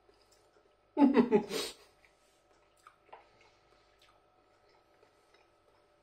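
A short vocal sound from a man, about a second in and lasting under a second, over a faint steady hum; a couple of faint clicks follow around three seconds in.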